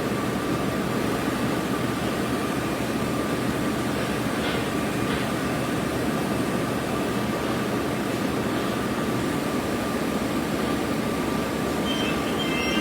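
Steady machinery noise with a constant high hum running evenly throughout; music comes in near the end.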